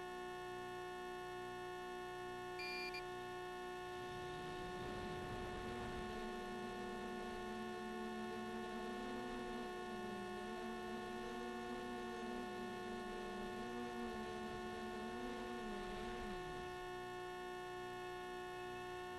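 Faint steady electronic hum and whine with a slow pulsing undertone, and a short beep about three seconds in. Then the 7-inch quadcopter's brushless motors spin up to a low, wavering whir for about twelve seconds and spin down again.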